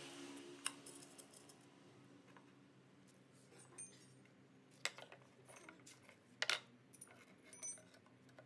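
Flat-steel scroll legs clinking against a square steel tube post and its bolt as they are fitted by hand: scattered small metallic clicks and taps, the loudest pair about six and a half seconds in.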